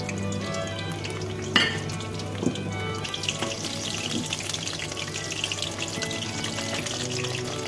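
Battered courgette pieces sizzling and crackling in hot deep-frying oil, the crackle growing busier after about three seconds as more pieces go into the oil. A single sharp knock about a second and a half in.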